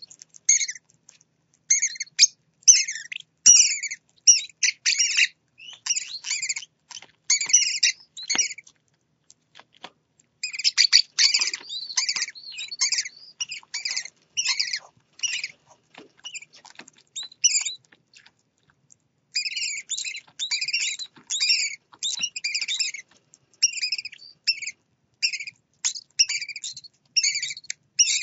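Small parrot chicks chirping and squeaking in rapid high-pitched bursts, the begging calls of chicks wanting to be fed by the blue parrot leaning over them, with two short pauses.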